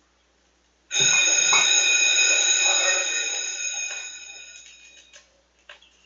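A bell-like ringing sound of several steady high tones starts about a second in, with two low knocks at its start, and fades away over about four seconds.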